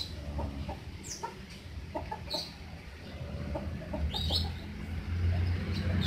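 Baby lovebird chick giving short, high chirps about four times, some falling in pitch, while being spoon-fed a soft food paste, with faint clicks and smacks as it takes food from the spoon.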